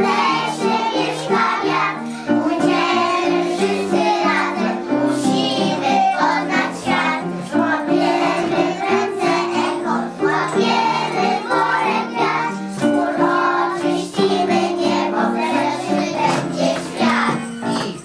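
A group of young children singing together in chorus over instrumental accompaniment with a stepping melody.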